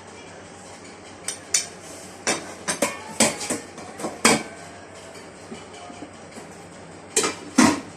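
Cutlery clinking and knocking against a plate: a run of sharp clicks over a few seconds, then two louder knocks near the end.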